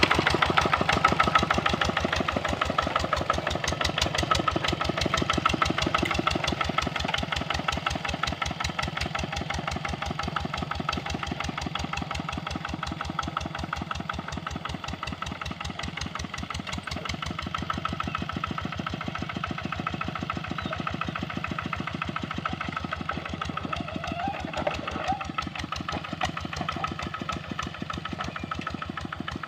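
Kubota RD65 single-cylinder diesel engine of a hand tractor running steadily with a fast, even firing beat, growing a little quieter through the first half.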